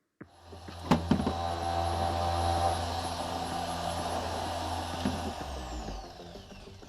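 An electric power tool's motor runs at full speed with a high whine, with two knocks about a second in. About five seconds in it is switched off and the whine falls away as it spins down.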